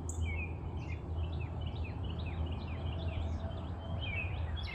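Small birds chirping: many short, quick, mostly down-slurred notes in an irregular stream, over a steady low hum.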